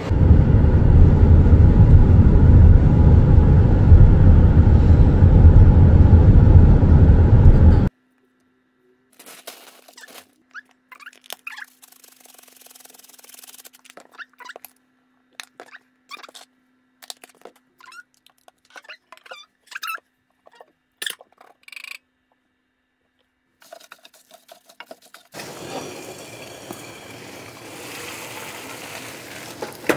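A loud, dense low noise for about eight seconds that cuts off suddenly. Then scattered light clicks and knocks of a plastic seasoning bottle and a steel pan being handled at a kitchen sink, with a faint steady hum. A steady hiss starts near the end.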